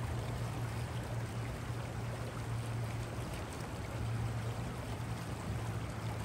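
Steady rush of flowing river water, with a low, even hum underneath.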